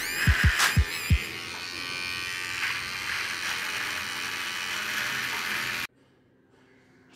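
Nova NHT 1085 cordless beard trimmer buzzing steadily as it cuts stubble, stopping abruptly about six seconds in. Electronic music with deep, falling kick-drum hits plays under it during the first second or so.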